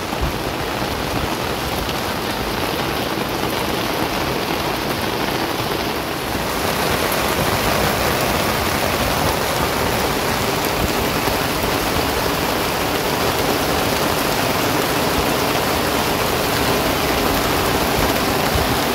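Heavy rain pouring onto open water, a dense steady hiss of countless drops striking the surface, growing a little louder about six seconds in.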